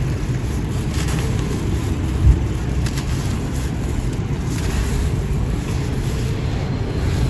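Dry sand-cement and ash texture crumbling: a few faint crackles over a steady low rumble, with one dull thump about two seconds in.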